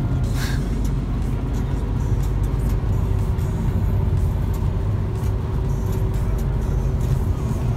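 Steady road and engine noise inside a car's cabin at highway speed: a continuous low rumble of tyres and engine.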